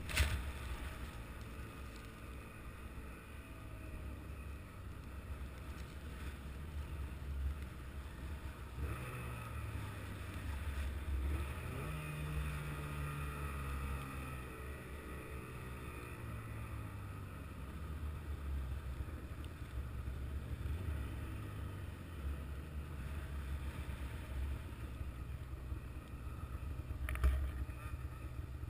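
An engine running steadily, its pitch rising and falling as it revs between about a third and halfway through.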